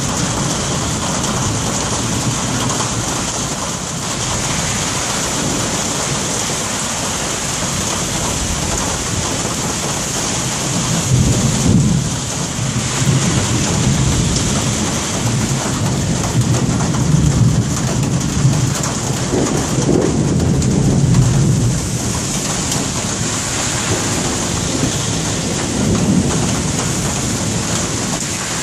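Rain falling steadily with a constant hiss, while thunder rumbles low: a long rolling peal from about a third of the way in lasting some ten seconds, and a shorter rumble near the end.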